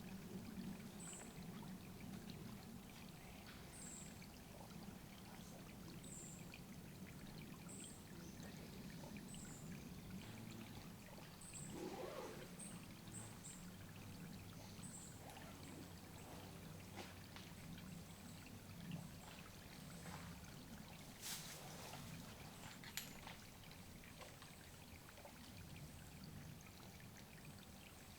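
Water trickling steadily, with a small bird giving short, very high single calls about once a second through the first half. Two sharp clicks come near the end.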